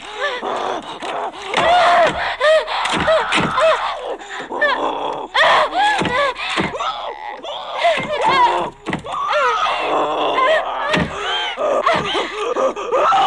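A woman's strained cries and whimpers mixed with a demon creature's growls and snarls, over repeated thuds of a door being shoved against her as she holds it shut.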